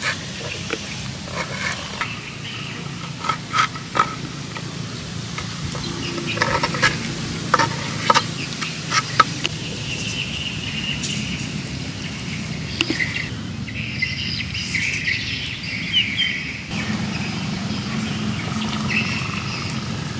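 A knife chopping chilies on a wooden cutting board: irregular sharp knocks that stop a little under halfway through. Birds and insects chirp in the background.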